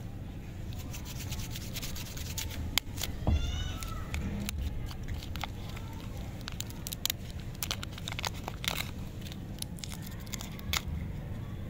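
Crinkling and crackling of a lollipop wrapper and its inner paper being peeled off by hand, with scattered sharp clicks. A short gliding call cuts in about three seconds in.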